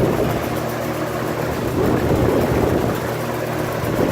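1980s–90s Toastmaster 20-inch box fan running on high speed: a steady rush of air over a low motor hum, very rattly and very noisy.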